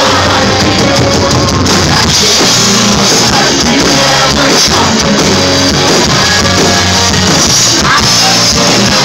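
A live rock band playing loud and steady, with electric guitars, bass and drums and no clear lead vocal line, recorded on a phone with a distorted, crowded sound.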